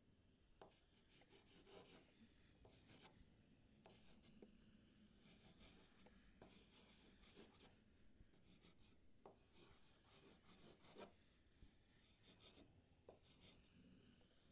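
Faint, short scratching strokes of a drawing tool on a drawing surface, following one another irregularly, like quick sketching or hatching.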